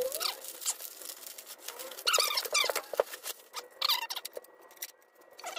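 Bubble wrap and plastic wrapping crinkling and rustling as they are pulled off a polished metal intake pipe, with a few short squeaks of plastic rubbing on plastic near the middle.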